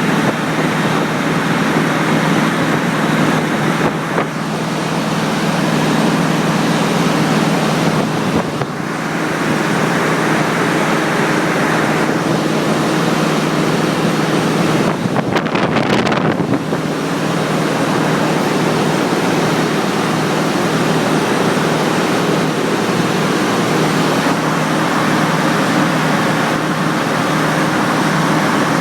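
Loud, steady machinery din of the kind heard aboard a ship during repair work, with brief dips and a few knocks about 4, 8 and 15 seconds in.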